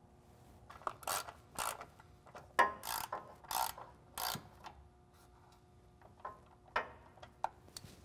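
Hand ratchet clicking in about five short bursts as the bolts of a plastic wiring cover are driven back in, then a few scattered ticks.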